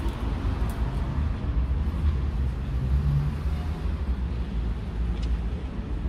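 City street ambience: a steady low rumble of road traffic.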